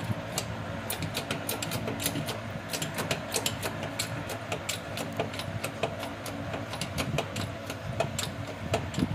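Hydraulic bottle jack being pumped by its handle to raise a car, clicking rapidly and irregularly with the strokes.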